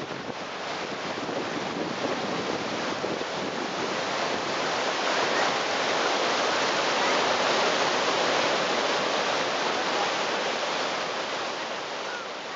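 Rushing water of the Niagara River rapids above Horseshoe Falls, a steady rush that swells louder through the middle and eases a little near the end.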